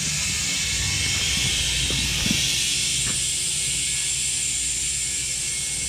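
Compressed air hissing steadily as it is blown into a heavy truck tire to seat the bead on the rim, with air likely escaping around the bead before it seals. A steady low rumble runs beneath, with a few faint knocks.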